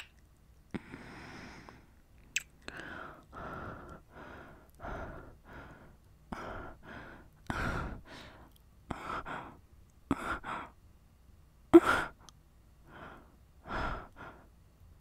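A woman's heavy breathing and breathy sighs, one after another, with a couple of sharp clicks, the loudest about three-quarters of the way through.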